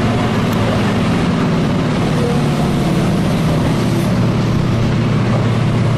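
MWM 6.10 TCA six-cylinder turbodiesel engine of a Volksbus 17-210 OD bus, running steadily with an even low note that holds the same pitch throughout.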